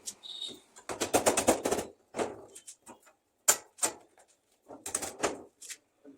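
Rapid sharp knocks: a fast rattling run of about ten a second around a second in, then scattered single knocks and short clusters.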